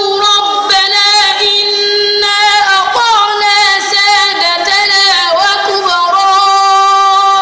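A boy's voice chanting Quranic recitation in a melodic style, drawing out long held notes with ornamented slides and wavers in pitch between them.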